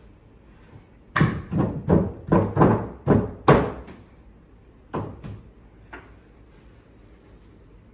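A quick run of about eight sharp knocks and bangs over roughly three seconds, then three lighter knocks a second or two later, as of hard panels or parts being handled and knocked together.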